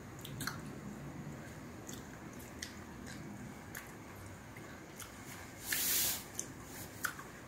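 Close-miked chewing and mouth sounds of a person eating, with scattered light clicks of wooden chopsticks against dishes and one short, louder hissing sound about six seconds in.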